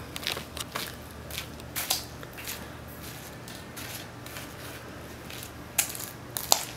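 Footsteps of sneakers on a brick-paver driveway, a run of irregular light clicks and scuffs, with two sharper clicks near the end as fishing rods are handled.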